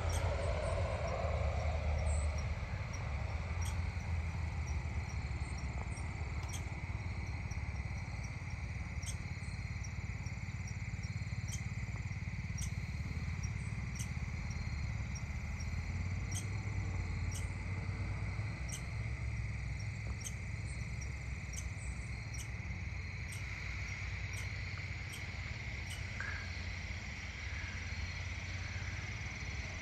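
Evening insect chorus: crickets chirping steadily in one high band, with a few sharp high ticks, over a steady low rumble.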